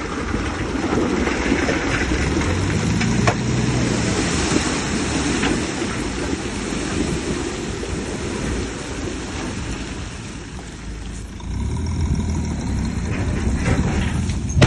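Diesel engine of heavy earth-moving machinery running, with a sharp knock a few seconds in. It eases off around ten seconds in and picks up again a second or so later.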